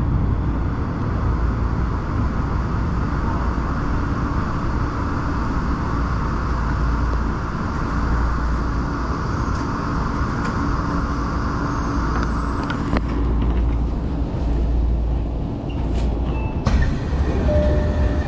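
Tokyo Metro Marunouchi Line subway train running, a steady rumble and hiss of wheels on rail. About thirteen seconds in the hiss eases, a few clicks are heard, and a few steady tones come in near the end.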